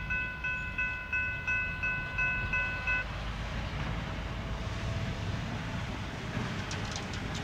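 A railroad grade-crossing bell rings about three strikes a second and stops about three seconds in. Under it, and on after it, is the low rumble of a passing freight train.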